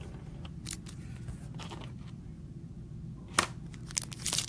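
A few sharp clicks and crackles of a sealed trading card box and its packaging being handled and opened, the loudest about three and a half seconds in.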